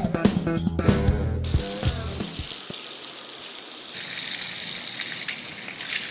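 Background music with a bass guitar that stops about a second and a half in, then a steady hiss of water from a hose spraying against a metal equipment cabinet and wet pavement.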